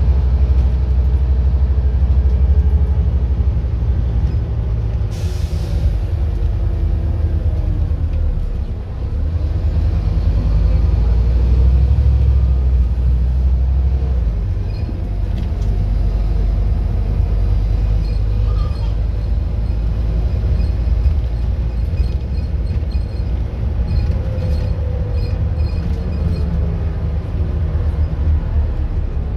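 Scania N230UD double-decker bus under way, heard from inside on the upper deck: its five-cylinder diesel engine and drivetrain rumble steadily, with a whine that rises and falls in pitch as the bus speeds up and slows. A short hiss of air comes about five seconds in.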